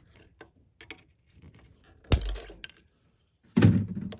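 Small plastic clicks and rattles from a wiring harness clip being unclipped and pulled free in an engine bay, with a sharp knock about two seconds in and a longer clatter near the end.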